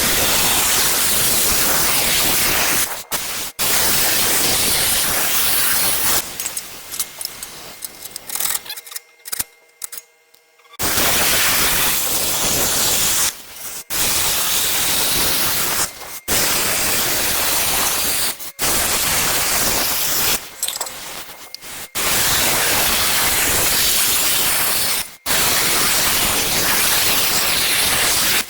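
Lincoln Tomahawk 625 plasma cutter cutting steel tube: a loud, steady hiss that cuts off and restarts many times between cuts. There is a longer break about nine seconds in.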